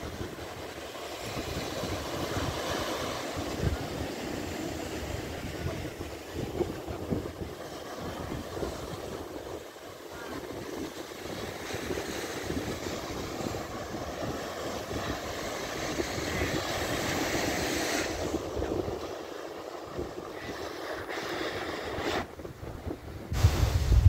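Surf breaking around reef rocks and washing up a sandy beach, with wind gusting across the microphone; the wind rumble gets much heavier near the end.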